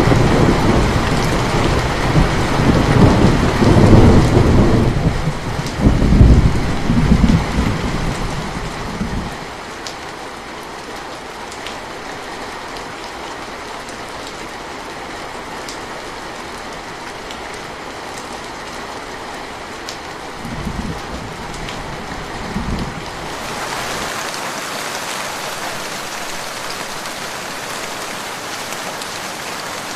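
Steady rain with thunder: a long, heavy rumble over the first several seconds, then two short rumbles later. About three-quarters of the way through, the rain turns brighter and fuller.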